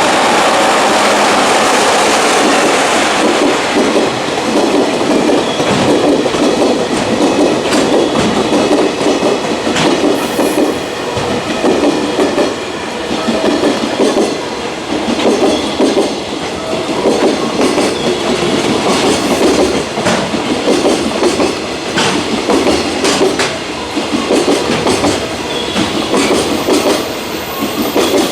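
JR Freight container train passing close by, its wagons clattering over the rail joints in a steady repeating rhythm, loudest in the first few seconds.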